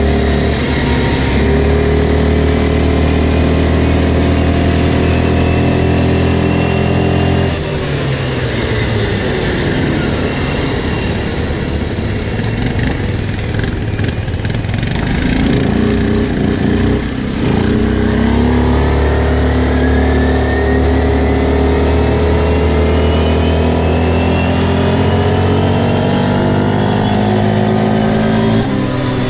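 Quad bike engine running under way, climbing in pitch as it accelerates for the first several seconds, then dropping and winding down as the throttle eases off, before climbing again through the second half.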